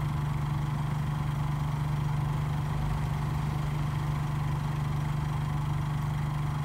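Honda EU3000is inverter generator running steadily under the load of a 13,500 BTU RV air conditioner on high, heard from its exhaust side about 20 feet away: an even, unchanging hum that reads about 61 or 62 dBA at that distance.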